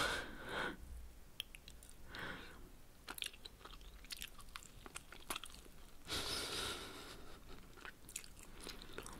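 Close-miked chewing and biting of a chicken and vegetable spring roll: scattered short wet clicks and smacks, with three longer breathy swells, the longest about six seconds in.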